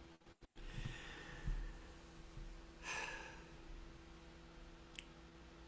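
Quiet room tone with a faint steady hum; a man breathes out audibly about three seconds in, with a small click near the end.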